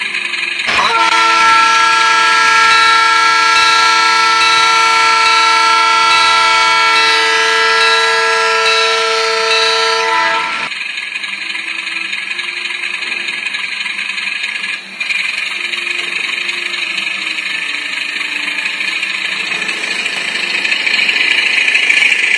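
Digitrax sound decoder in an HO-scale model WDM2 diesel locomotive sounding a long multi-tone horn for about ten seconds. It then gives way to the decoder's steady diesel engine sound with a hiss as the model moves off, growing louder near the end.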